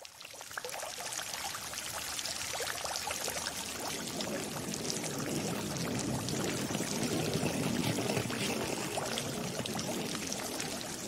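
Fountain water splashing and pouring steadily into a basin.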